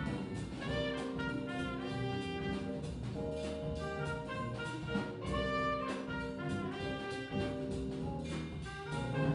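Small jazz band playing live: saxophone and trumpet play held lines over upright bass, drums and Fender Rhodes electric piano.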